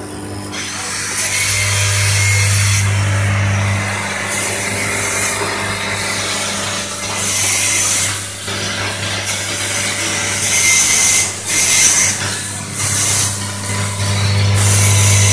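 Vibratory bowl feeder running with a steady low hum, small metal parts rattling as they travel round the bowl. Short high hissing bursts from the machine repeat every one to two seconds.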